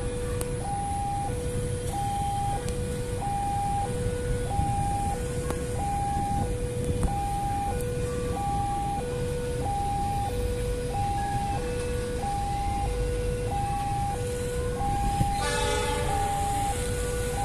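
Railway level-crossing warning alarm sounding continuously: an electronic two-tone chime alternating high and low, each tone held about half a second. About fifteen seconds in, a train horn sounds briefly over it.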